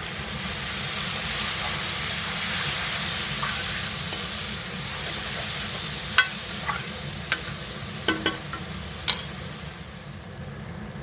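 Onion and spice masala sizzling in hot mustard oil in a metal kadhai, the hiss swelling for a few seconds as a little water goes into the pan and is stirred in. In the second half a steel spoon strikes the pan with about six sharp clinks.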